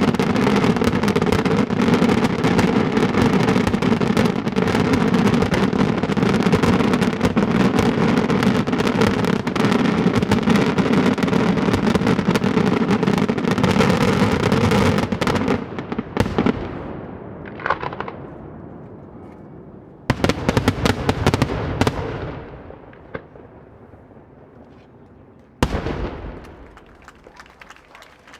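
Daytime fireworks: a dense, rapid barrage of bangs for about fifteen seconds that stops and echoes away. A short cluster of bangs follows a few seconds later, then one single bang near the end, each with a long echoing tail.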